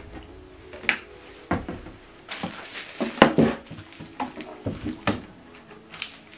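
Plastic wrapping rustling and crinkling around a bagged subwoofer as it is handled, tipped and stood upright on a table. Several knocks and bumps go with it, the loudest about the middle.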